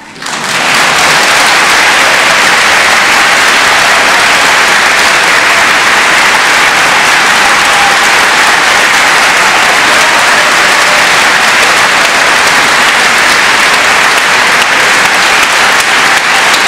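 Audience applause filling a concert hall, swelling up within the first second as the choral song ends and then holding steady and loud.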